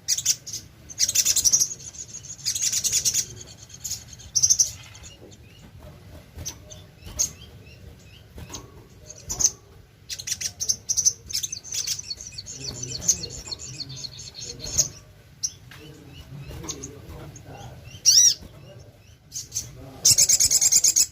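Brown-throated sunbird (sogok ontong) singing: bursts of sharp, high chirps and short trilling phrases, some with quick rising-and-falling notes, broken by brief pauses.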